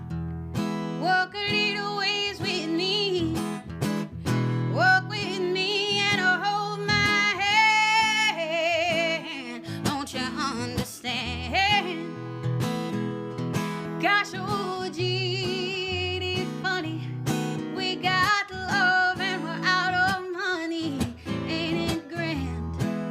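Solo acoustic guitar strummed under a woman's singing, her long held notes wavering with vibrato.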